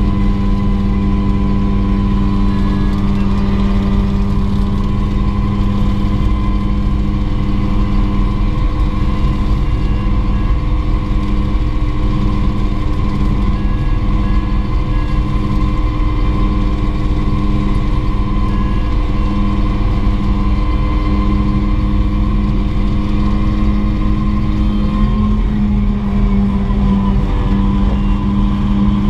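Mosquito helicopter's turbine engine and rotor running steadily: a loud, even drone with several steady tones, which shift slightly in pitch about 25 seconds in.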